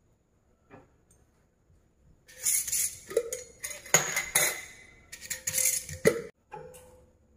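Metal screw lids twisting and scraping on glass jars, with clinks of glass and metal as the jars are handled, in several bursts starting about two seconds in.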